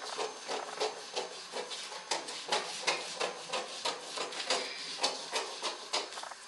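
Scissors cutting through a paper sewing pattern: a quick, irregular run of crisp snips, several a second, with the paper rustling in between.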